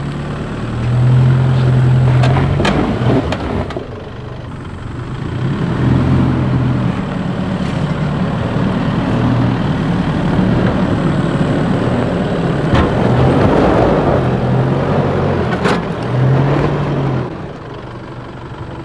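A four-wheel drive's engine working under load as it crawls up a rocky, rutted climb, the revs rising and falling as the wheels try to mount a big rock. A few sharp knocks come through as it goes.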